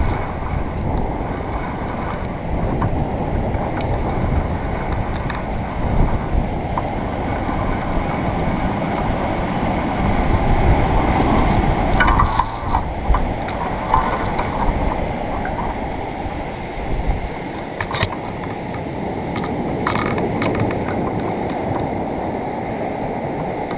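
Wind buffeting the camera's microphone over the rush of heavy surf breaking on rocks, a steady loud noise, with a few sharp clicks from handling.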